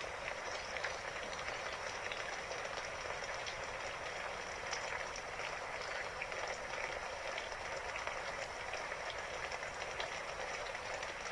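Steady rain falling, an even hiss with many small drop ticks through it.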